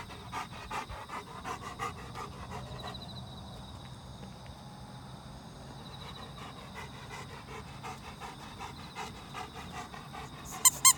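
Golden retriever panting quickly and rhythmically, easing off in the middle and picking up again. Near the end, two loud high squeaks from a rubber squeaky ball toy.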